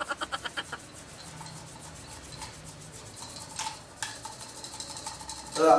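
Hands rubbing a small object between the palms, a soft, even rustling. In the first second a brief, rapidly pulsing pitched sound fades out.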